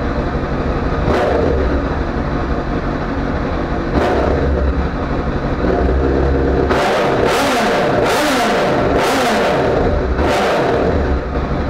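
Honda CBR1000RR inline-four engine idling and being blipped through a stock silencer that has been drilled out, giving a louder, aftermarket-like exhaust note. A single rev about a second in and another at about four seconds, then about five quick revs in a row near the end, each rising and falling back to idle.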